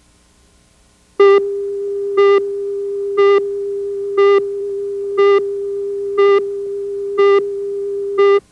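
Countdown leader's test tone: a steady tone with a louder beep once a second, eight beeps in all, that cuts off suddenly near the end.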